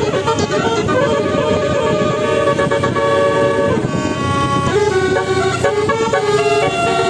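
Bus telolet horn, a set of multi-tone trumpet horns playing a tune: held chords that step to new pitches every second or so, over a steady low rumble.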